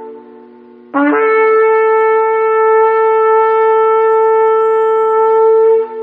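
Shofar (ram's horn) blast: a long, steady held note that scoops up in pitch as it starts about a second in, after the fading end of a previous blast.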